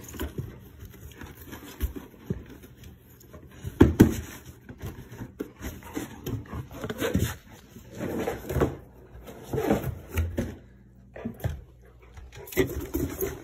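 A Labrador retriever mouthing and shoving a cardboard shipping box across carpet: irregular knocks, scrapes and rustles of cardboard, the loudest knock about four seconds in.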